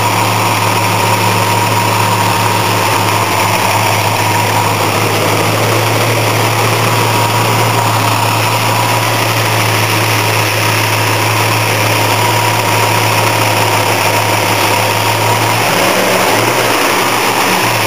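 Rebuilt Chevrolet 327 small-block V8 idling steadily. Its low note wavers briefly near the end.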